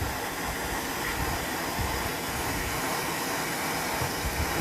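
Handheld gas torch burning with a steady hiss, its flame heating a seized exhaust bolt to loosen it.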